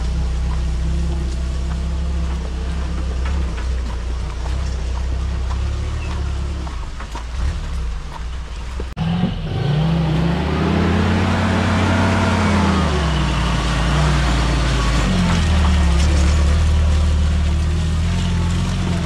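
Mahindra CJ3B jeep's engine running steadily as it drives on a muddy track. After a cut about nine seconds in, the revs rise and then fall again over a few seconds as it climbs a muddy slope, then settle steady.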